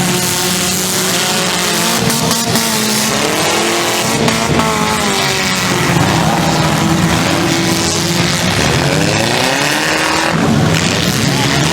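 Several demolition derby cars' engines running hard, their revs rising and falling over a steady loud din of motors.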